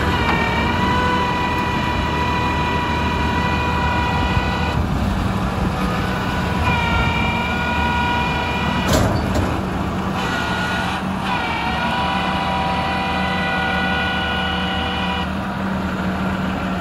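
Kenworth T800 roll-off truck's diesel engine running while its hydraulic hoist loads a steel roll-off container onto the truck. A steady high whine from the hoist's hydraulics comes and goes in three long stretches, and there is a single clank about nine seconds in.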